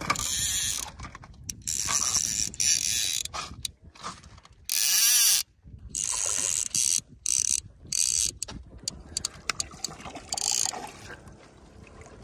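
Fly reel's click-and-pawl drag ratcheting in runs with short gaps as a hooked trout is played.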